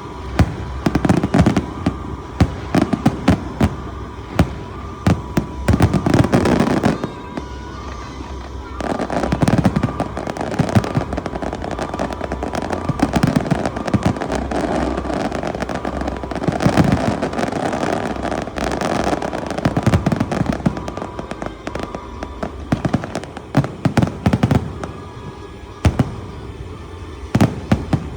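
Fireworks going off: a rapid string of sharp bangs and pops, with a denser stretch of continuous crackling through the middle.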